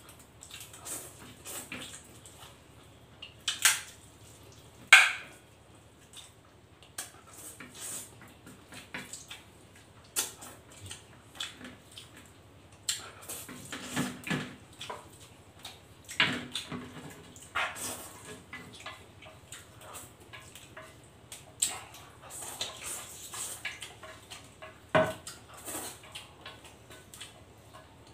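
Eating sounds: a man slurping and chewing stir-fried instant noodles, with chopsticks clicking and scraping on a plate. The noises come in irregular short bursts, the loudest about four and five seconds in.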